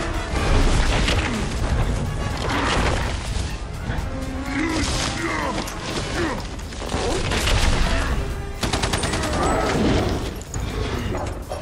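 Film action soundtrack: rapid automatic gunfire and impacts over a heavy low rumble and music, the shots coming densest and most even a little past two-thirds of the way through.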